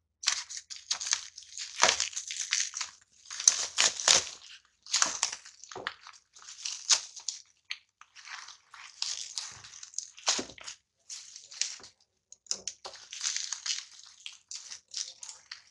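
Black plastic packaging wrap being torn and peeled off a smartphone box by hand: irregular crinkling and crackling throughout, with a few sharper rips.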